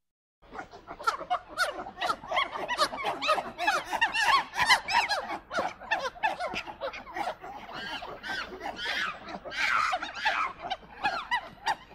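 A group of monkeys chattering, with many short, overlapping high calls that rise and fall in pitch. They start about half a second in.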